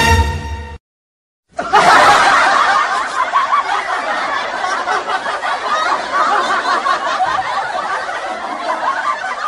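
Crowd laughing, a laugh-track sound effect, starting about a second and a half in and carrying on steadily. It is preceded by the end of a music cue.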